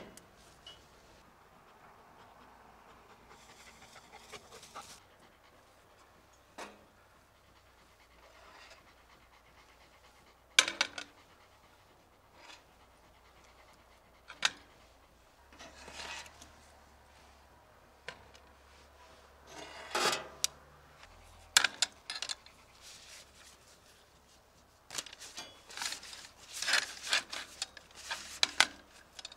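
Scattered metal clinks and scrapes of skewers being handled as chunks of grilled lamb are slid off them onto a plate, with the rustle of lavash flatbread being folded over. The handling noises come in short separate bursts and cluster more densely near the end.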